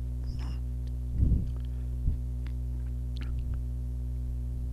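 Steady low electrical hum, with a soft bump about a second in and a faint click about a second later.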